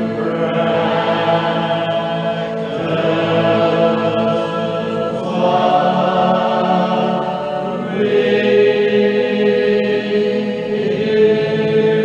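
Congregation singing a hymn a cappella, slow and drawn out, each long note held for about two to three seconds before moving to the next.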